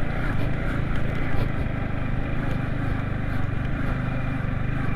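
Yamaha MT-15 V2's 155 cc single-cylinder engine running steadily under way.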